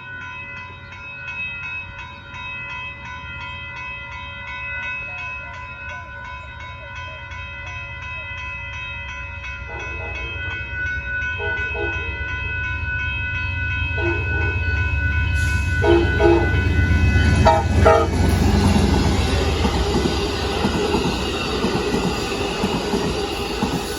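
Railroad crossing bell ringing rapidly as the Amtrak Texas Eagle passenger train approaches, its locomotive horn sounding a series of blasts from about ten seconds in. From about fifteen seconds in the train passes close by, rumbling and clacking over the rails, loudest just after the horn ends.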